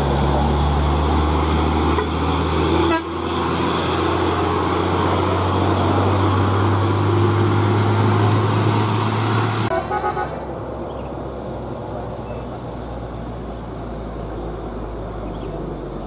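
Hino 500 heavy diesel truck engine pulling hard past at close range, a loud, steady low drone with a brief dip about three seconds in. About ten seconds in it gives way to a quieter, steadier engine from a second Hino truck approaching.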